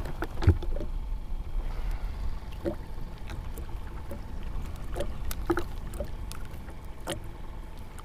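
Steady low wind rumble and water lapping against a kayak, with scattered small clicks and knocks while a fish is handled and unhooked; the sharpest knock comes about half a second in.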